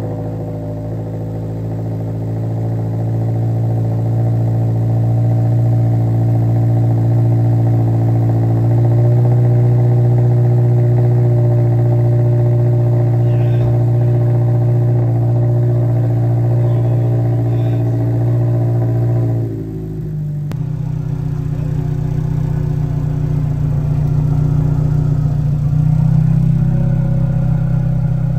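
Toyota GR86's 2.4-litre flat-four, breathing through a Corsa cat-back exhaust, idling high and steady just after a cold start. Its pitch dips about two-thirds of the way through as the idle settles lower.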